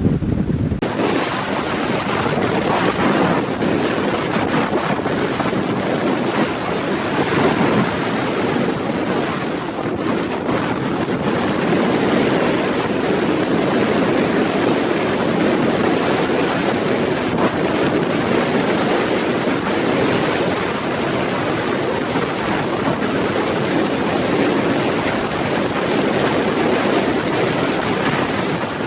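Strong wind blasting across the microphone: a loud, steady rush of noise that drowns out everything else.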